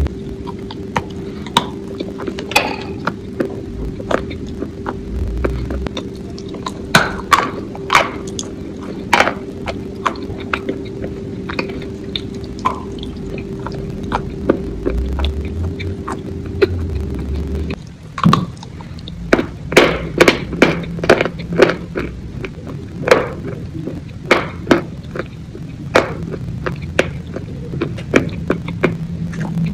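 Close-miked wet mouth sounds: sticky lip smacks and clicks from chewing something soft and creamy, in irregular bursts that come much faster over the last third. A steady low hum runs underneath and cuts off a little past halfway.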